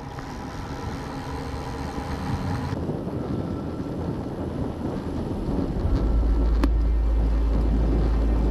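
Wind rushing and buffeting on the microphone, with a steady noisy road haze; about six seconds in a deep rumble comes in and the sound grows louder.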